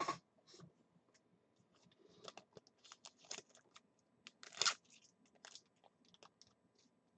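Faint, irregular clicks and crinkly rustles of small objects being handled, with one louder crackle about four and a half seconds in.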